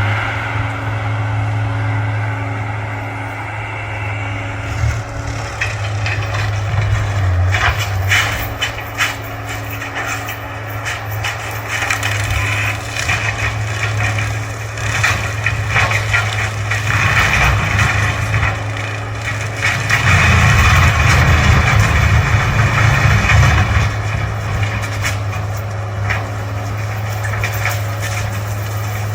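John Deere 328D skid steer's diesel engine running under load while brush and small trees crack and snap as they are broken down. The engine works harder, louder and rougher, for a few seconds about two-thirds of the way in.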